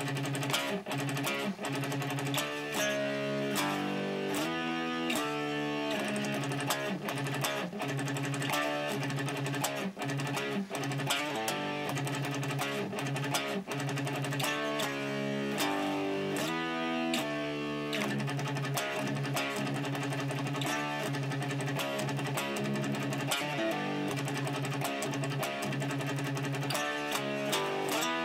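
Fernandes electric guitar played through a Marshall amp, a riff of low chugging notes and chord changes following a drum beat.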